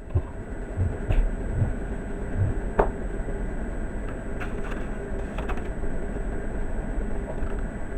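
A cat's low, steady rumbling close to the microphone, with a few soft knocks in the first couple of seconds and a single click shortly after.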